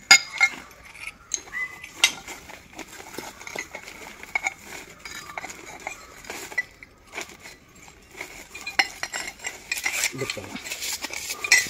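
Pieces of ceramic tile clinking, knocking and scraping against one another as they are laid and shifted by hand: an irregular run of light clicks and knocks, some with a short ring.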